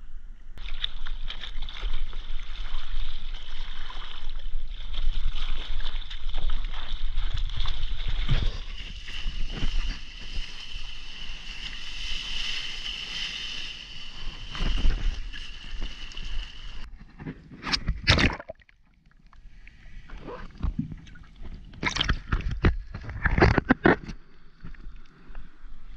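Seawater rushing and sloshing around a soft-top surfboard close to the camera, then a few separate sharp splashes in the last third.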